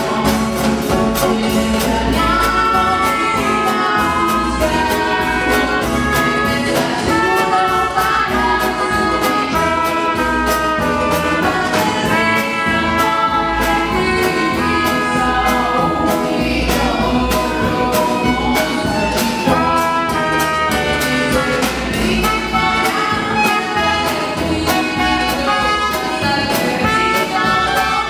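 Live band music: a woman singing over upright double bass and acoustic guitar, with a steady beat.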